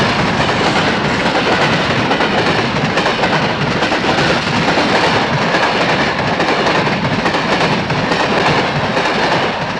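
Soviet electric commuter train (elektrichka) running past close by: a loud, steady rush of wheels on rails and moving cars, easing slightly near the end.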